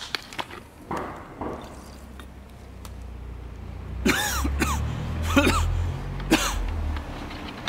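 A man gulping water, several loud swallows in a row between about four and seven seconds in.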